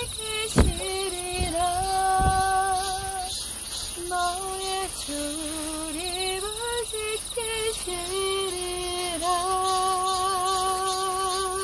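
Closing melody of a worship song: a wordless high melodic line of long held notes that slide between pitches, over a steady high chirring of crickets. A couple of low thumps sound in the first two seconds.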